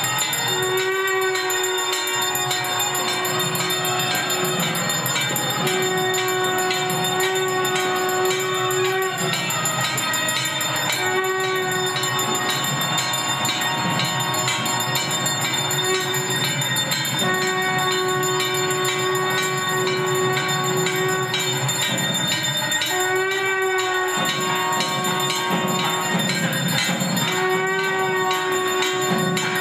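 Nadaswaram playing long held notes that bend at their starts and break every few seconds, over continuous ringing of brass hand bells at a temple puja.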